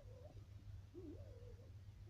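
Daewoo Lanos steering squeaking: a faint, wavering squeal that rises and falls in pitch, heard twice, about a second apart, over a steady low hum.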